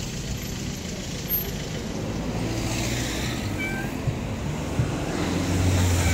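Street traffic noise: a motor vehicle's engine running low and steady, growing louder toward the end as it comes close.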